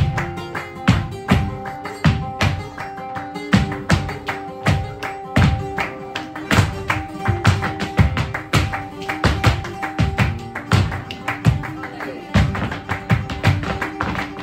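Flamenco guitar playing under rapid, sharp zapateado footwork: the dancers' heels and toes striking the wooden stage, with palmas hand-clapping.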